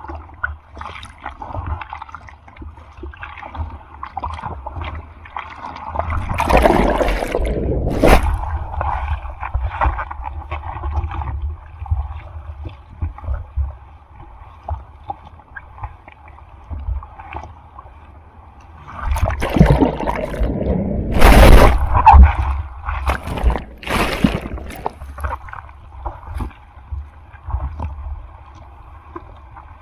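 Typhoon surf: water sloshing and splashing close to the microphone, with two louder rushes of breaking wave water, one about six seconds in and the other around twenty seconds in, each lasting a few seconds.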